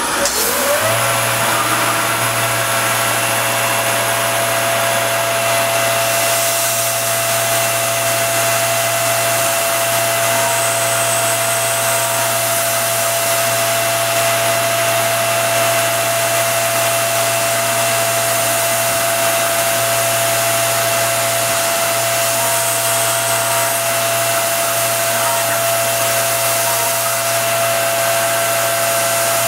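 Self-converted RF45 CNC mill spindle spinning up with a short rising whine about a second in, then running steadily as a 1/8-inch end mill cuts 3D lightening panels into a 1911 pistol slide. Under the whine there is a constant hiss.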